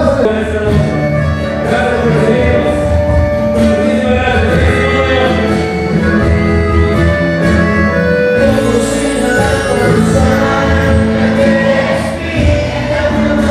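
Live regional Mexican band music with a male voice singing over it. A sousaphone and an electric bass carry a steady, strong bass line.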